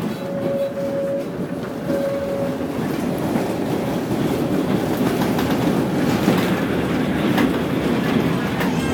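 A tram running on its rails, growing louder, with wheel clatter and sharp clicks over the rail joints in the second half. Two short steady tones sound in the first few seconds.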